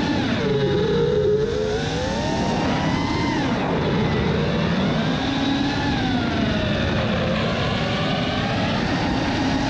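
Brushless motors of a 5-inch FPV racing quadcopter (T-Motor F40 Pro II 2306 2400kv on 5S, Gemfan 5152 props) whining in flight, their several pitches sliding up and down together as the throttle changes, over a rush of wind noise.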